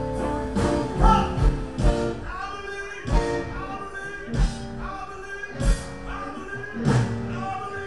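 Live band playing blues-rock, an electric guitar leading over a strong regular beat that lands about every second and a quarter.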